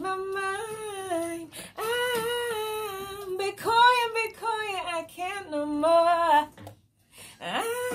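A woman singing into a microphone, holding long notes and sliding between them, breaking off briefly about a second before the end.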